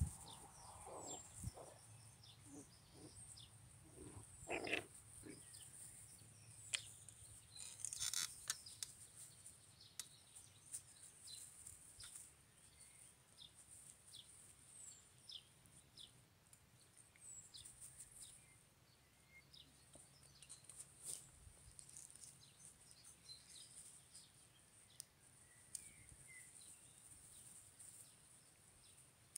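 Faint outdoor ambience: small birds chirping now and then over a steady high-pitched hiss, with a few soft low sounds in the first few seconds.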